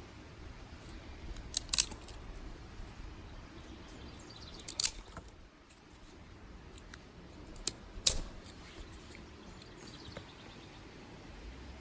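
Dry sticks snapped by hand: three sharp cracks about three seconds apart, each a quick double crack, with a smaller snap just before the last.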